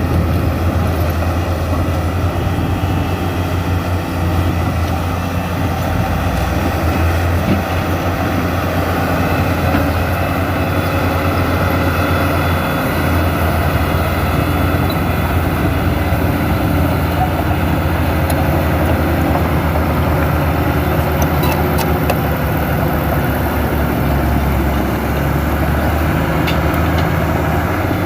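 New Holland 7D crawler bulldozer's diesel engine running steadily as a continuous low drone.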